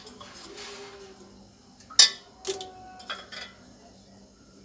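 Steel cookware clinking: one sharp metallic clink about two seconds in, then a few lighter knocks, over a faint steady hum.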